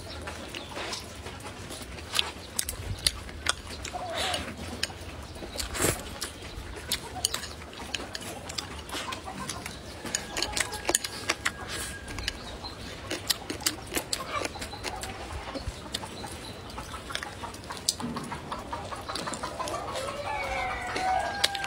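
Close-up eating sounds: chewing, lip smacks and chopstick clicks, with chickens clucking in the background.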